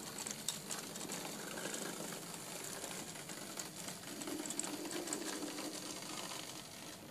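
Dapol OO gauge LMS 'Pug' 0-4-0 model locomotive's small motor running smoothly at a slow shunting speed as it pulls wagons, with light clicking from the wheels on the track. It is a nice-sounding motor, not too rough and not too sluggish.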